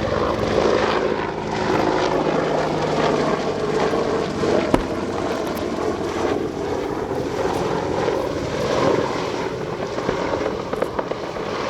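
Apache AH1 attack helicopter in display flight, its rotor and turbine noise running steadily, with one sharp crack about five seconds in.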